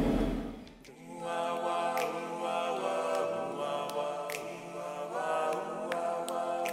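A low rumble fades out in the first second. Then choral music begins: several voices sing sustained chords that shift every second or two, with a few faint clicks.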